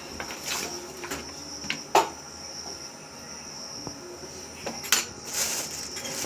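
A spoon clinking and tapping against a bowl a few times as flour is spooned onto cut potatoes, the sharpest tap about two seconds in and another near the five-second mark.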